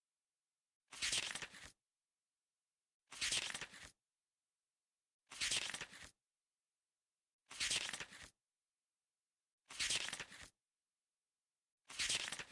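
A short noise burst, under a second long, repeating at even intervals about every two and a quarter seconds, six times, with dead silence between.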